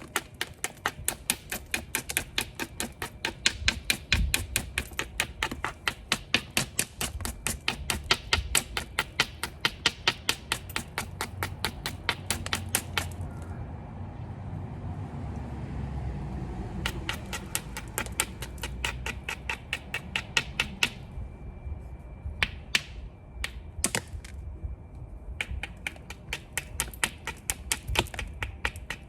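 Obsidian being knapped into a stone tool: rapid, regular sharp clicks of tapping on the obsidian, about five a second. They stop for a few seconds in the middle, then resume in shorter runs.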